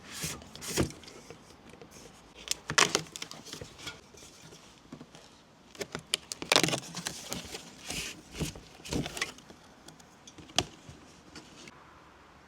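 Unboxing handling noise: cardboard and packaging rustling, with irregular clicks and knocks from items being handled, which die away near the end.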